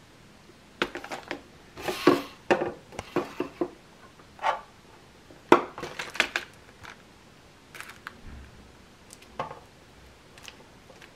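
Hands handling plastic-packaged cleaning tools and sealing clips: packaging crinkling and hard plastic clacking in scattered bursts. The loudest bursts come around two and five-and-a-half seconds in, thinning to a few light knocks near the end.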